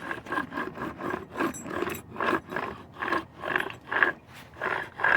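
Worn steering rack and pinion from a 2008 Toyota RAV4 being pushed back and forth by hand, clunking with each stroke at about two or three a second: the play of a damaged rack that should not move like this.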